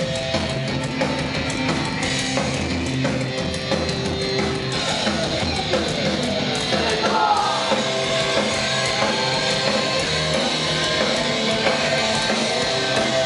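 Hardcore punk band playing live at steady volume: electric guitars and drum kit, with some vocals.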